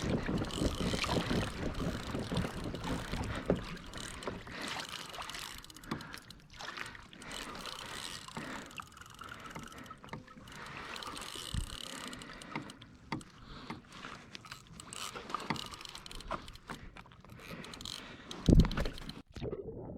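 Water sloshing against a 2015 Hobie Revolution 13 kayak's hull, with wind on the microphone and scattered knocks and clicks on the boat. One loud thump comes about a second and a half before the end.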